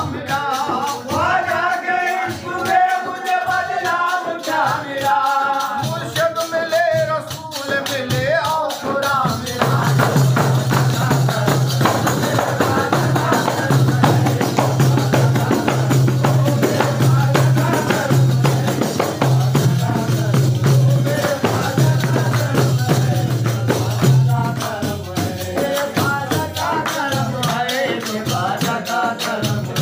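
Group of men singing a devotional chant to large hand-beaten frame drums (daf). About ten seconds in, the voices give way to fast, dense drumming for around a quarter of a minute, and the singing comes back near the end.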